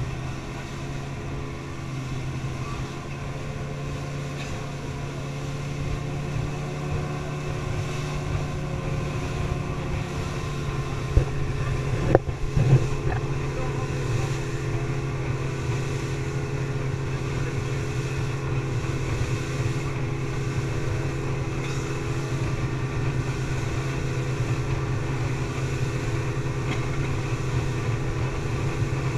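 Speedboat engine running steadily at cruising speed, a constant hum, with water rushing past the hull. A few brief knocks about eleven to thirteen seconds in.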